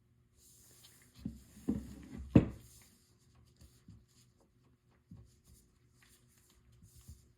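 Unboxing handling noise: a few knocks and rubbing as packaging and parts are handled, the loudest knock about two and a half seconds in, followed by scattered light clicks.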